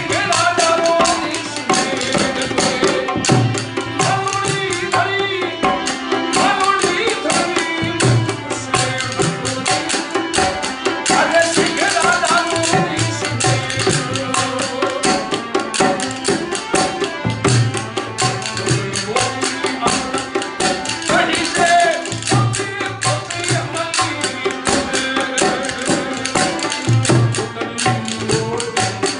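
Rajasthani folk music: a man sings a wavering, ornamented melody over a harmonium and a steadily beaten dholak hand drum.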